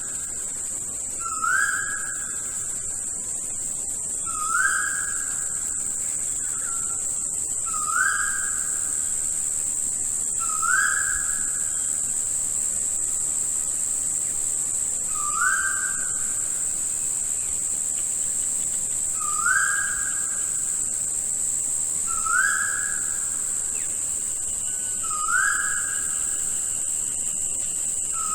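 A rain forest bird repeats a single whistled note about every three seconds, each one a quick upward slur that then holds level. Behind it runs a steady high-pitched insect drone.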